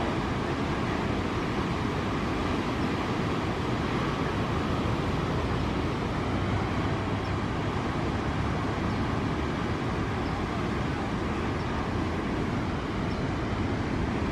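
Steady, even outdoor roar with no distinct events, of the kind made by surf and distant road traffic together.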